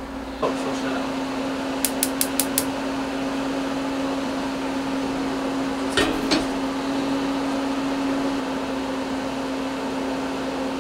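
Gas cooktop burner being lit: a quick run of five sharp igniter clicks about two seconds in, then the burner running under a pot over a steady low hum, with one knock around six seconds.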